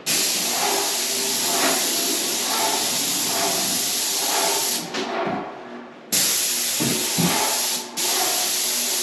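Graco 695 airless paint sprayer gun spraying paint, a steady hiss from the spray tip. It sprays for about five seconds, stops for about a second, then sprays again with a short break near the end, each trigger pull starting and stopping sharply.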